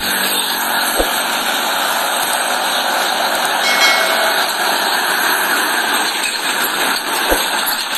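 Mitsubishi Fuso truck driving along a road: a steady rush of engine and tyre noise, with a short low thump about a second in and another near the end.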